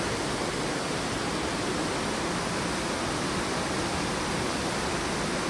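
Steady, even rush of falling water from Bear Creek Falls, a constant hiss spread from low to high pitch.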